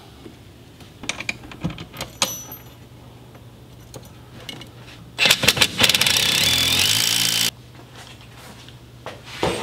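A few light metal clicks as parts are handled, then a power tool runs for about two seconds and stops abruptly, driving the 10 mm bolt into the steering-shaft coupler on the EPS motor's spline shaft.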